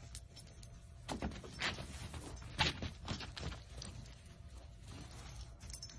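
Faint rustling and a few soft scuffs as a small dog burrows under a rolled-up outdoor rug, over a low steady rumble.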